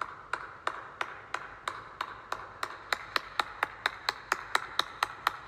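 A slow clap by one person: single sharp hand claps that speed up steadily from about three to about five claps a second.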